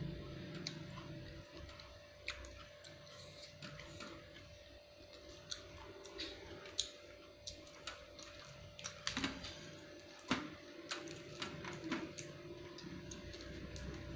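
Close-miked eating sounds: scattered small clicks and crunches of chewing fresh vegetables, coming irregularly a few times a second, over a faint steady hum.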